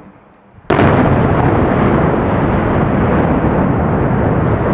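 Abrasive media blaster starting suddenly about a second in, then a loud, steady rushing blast of air and grit.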